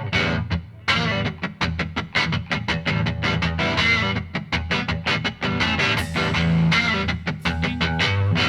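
Background rock music led by electric guitar, with a quick, steady beat, starting abruptly just before.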